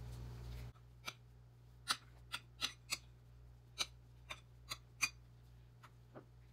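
Metal wire potato masher clinking against a ceramic bowl while mashing cooked potatoes: about a dozen sharp, irregular clicks, one or two a second.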